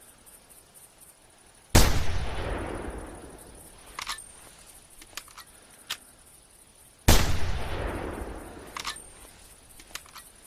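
Two shots from a Remington 700 bolt-action rifle, about five seconds apart, each with a long echo rolling away over about two seconds. After each shot come a few short sharp clicks, the bolt being worked. Crickets chirp steadily in the background.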